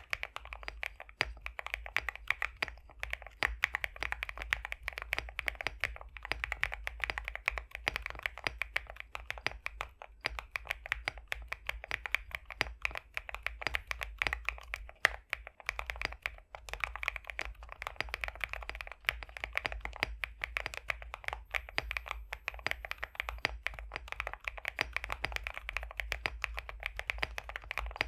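Steady, fast typing on a custom 65% mechanical keyboard, an Epomaker x Createkeebs High65 v2 with pre-lubed BSUN X linear switches. It gives a dense run of rounded keystrokes, the 'thocky & creamy' sound the build is tuned for.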